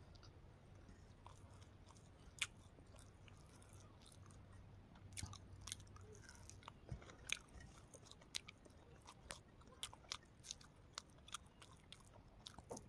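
Faint chewing and biting of someone eating rice and fried pork by hand, with scattered small clicks and smacks that come more often from about five seconds in.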